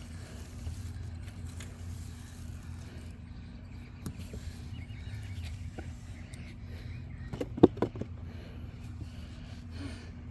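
Potatoes being dug out of the soil by hand: soft scrapes and small clicks, with a sharp knock about seven and a half seconds in, over a steady low rumble.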